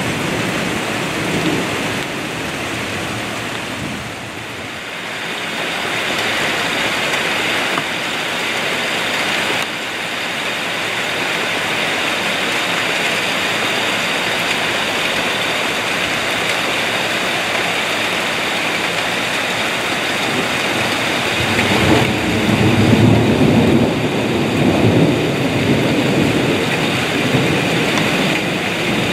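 Steady rain falling and splashing on the ground and garden, with a deeper low rumble joining near the start and again late on.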